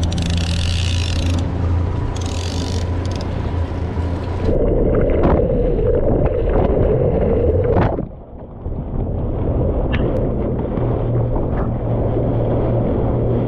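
Boat's outboard motor running steadily at cruising speed, with wind and water rushing past the hull. About four and a half seconds in, the sound turns muffled and thick with water rush as the microphone goes underwater, with two short rising squeaks. The motor drone and the splash of the bow wave come back afterwards.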